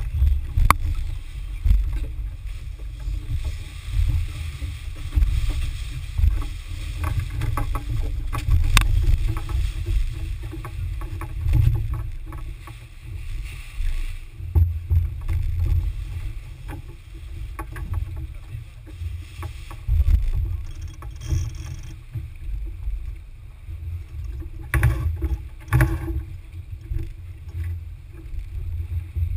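Wind rumbling and gusting on a boat-mounted camera's microphone with water noise along the hull of a Smaragd-class sailboat under sail. Scattered knocks and clicks from crew handling gear on deck, the loudest pair about three-quarters of the way in.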